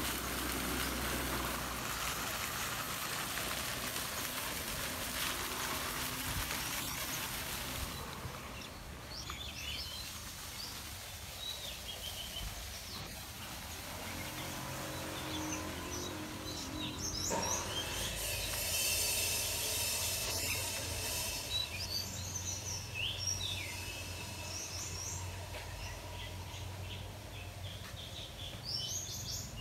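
Garden fountain jets splashing into a pond for the first several seconds, then stopping. After that, birds chirp and call in short phrases, more often toward the end.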